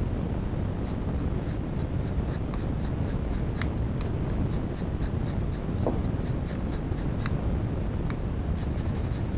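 Toothbrush bristles scrubbing dust off an Asus K53 laptop's cooling fan and heatsink: a quick run of short scratchy strokes, about three a second, over a steady low rumble.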